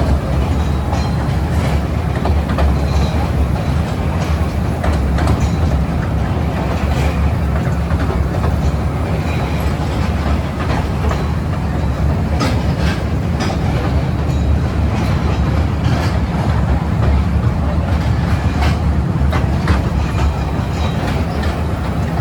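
Small amusement-park toy train running on its track: a steady low rumble with scattered clicks of the wheels over the rails.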